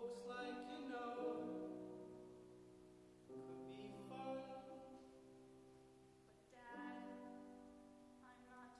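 Grand piano playing slow sustained chords. A new chord is struck about every three seconds and left to ring and fade.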